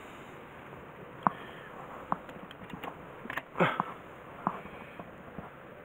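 Scattered clicks and light knocks of hand work on electrical wiring and terminals, over a steady hiss; a short cluster of clicks about three and a half seconds in is the loudest.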